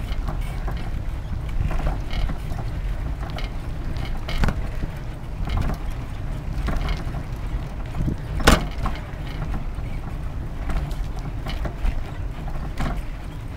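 Bicycle riding along a paved path: a steady low rumble from the ride, with scattered rattles and clicks from the bike and one sharper knock about eight seconds in.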